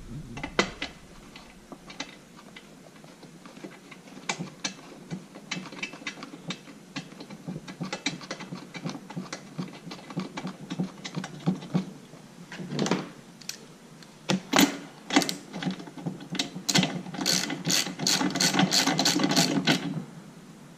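Ratchet wrench clicking as a new spark plug is turned into a RedMax blower's engine: scattered clicks and knocks at first, then a quick run of ratchet clicks for the last few seconds.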